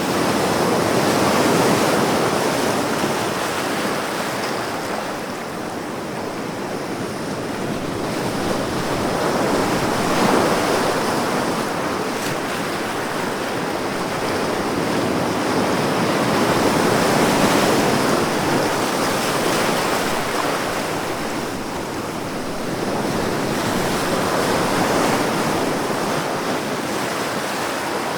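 Ocean surf, waves breaking and washing in as a continuous rush that swells and eases about every seven or eight seconds.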